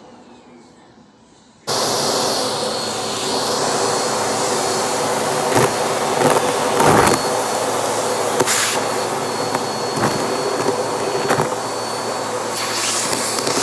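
A Shark upright vacuum cleaner switches on about two seconds in and runs steadily with a thin high whine. Its crevice tool sucks up a pile of shredded paper debris from the carpet, with scattered rattles and knocks as clumps go up the tool and hose.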